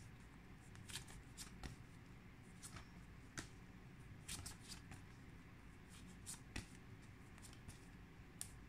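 Paper flashcards being flicked over one by one from a handheld stack: faint, irregular soft flicks and rustles, roughly one every half second to second.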